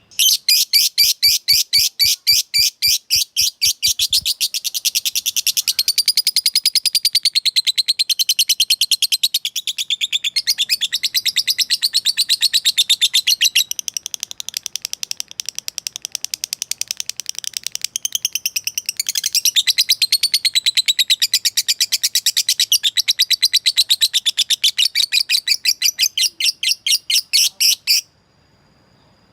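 Lovebird giving a long ngekek chatter: an unbroken run of shrill, rapid chirps, about five a second at first and then faster. It lasts nearly half a minute and cuts off suddenly. It is a call to a rival that is meant to provoke other lovebirds into answering.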